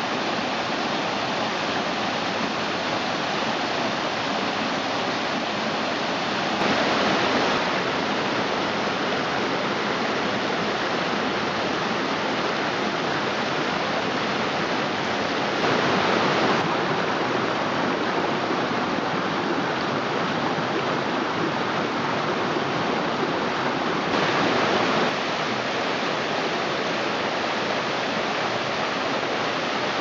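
Mountain creek rushing over rocks and small cascades: a steady rush of water, briefly a little louder three times.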